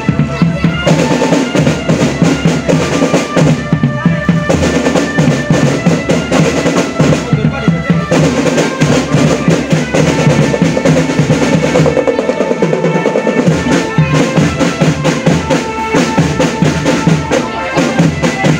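Marching drum band playing: rapid snare-drum rolls and bass-drum beats under a pitched melody line.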